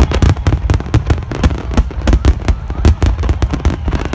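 A dense barrage of aerial firework shells bursting, with many sharp booms and cracks a second running into one another over a continuous deep rumble.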